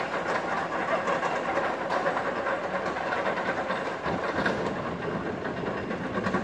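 Roller coaster train rolling over the crest of the lift hill and starting down the first drop: a steady running noise of its wheels on the steel track.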